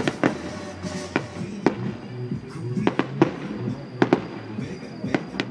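Aerial fireworks bursting in an irregular string of sharp bangs, about ten in five seconds, with music playing underneath.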